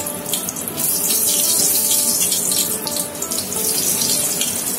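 Batter-coated vegetable pakoras deep-frying in hot oil: a steady sizzle full of small crackles. It swells about a second in as a batter-dipped capsicum ring goes into the oil and bubbles hard.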